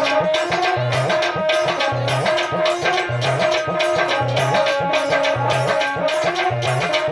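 Instrumental Indian devotional music: hand drums keep a fast, steady rhythm with a low drum beat about once a second, under a held melody line.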